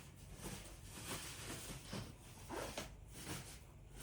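Juicer parts and packaging being handled: irregular rustling with light knocks and scrapes.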